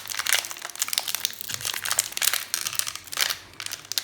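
Plastic booster pack wrapper crinkling and crackling as it is handled, in dense irregular bursts.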